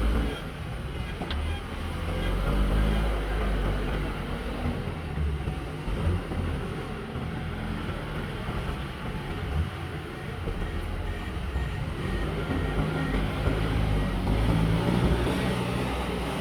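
Diesel engine of heavy earthmoving machinery running at work, its engine speed rising and falling under changing load.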